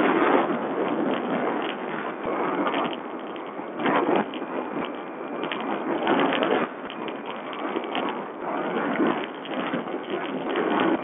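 Sherco 125 four-stroke enduro motorcycle being ridden over a dirt track, heard as a rough, noisy rush that swells and eases every few seconds, through a low-quality watch camera's microphone.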